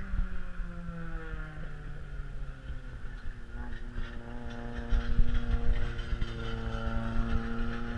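Stock car engines lapping a short oval. One car's engine note falls away over the first couple of seconds. From about three seconds in, another car's engine comes up steady and louder as it runs past, over a low rumble of wind on the microphone.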